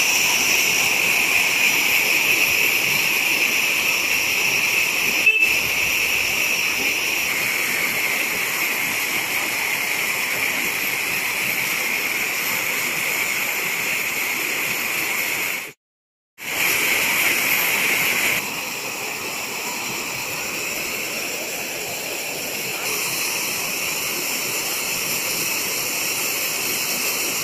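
Waterfall rushing over rocks, a steady hiss of falling water, cutting out briefly about halfway through.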